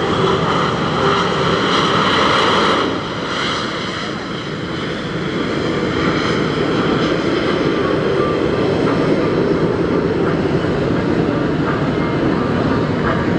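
Blue Angels F/A-18 Hornet jet engines running as the jets taxi, a high turbine whine over a dense rumble. The sound dips about three seconds in and builds again a few seconds later.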